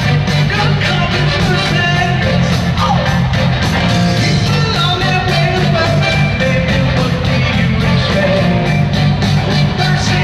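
Live rock band playing, heard from the crowd in an arena: drums, guitar and singing over a steady beat.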